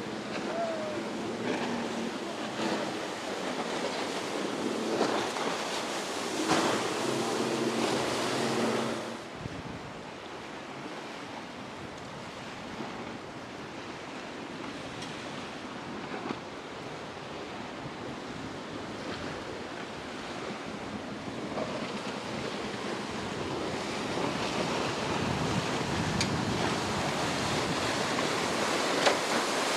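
Rough ocean surf and breaking waves with wind buffeting the microphone. A boat engine's steady hum runs under it through the first third, then stops abruptly.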